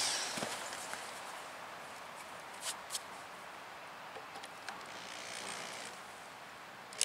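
Low outdoor background between drill runs, with the end of a power drill's run fading out in the first second. A few faint clicks and taps follow, two of them close together about three seconds in, as the drill and screw are handled against the wooden board.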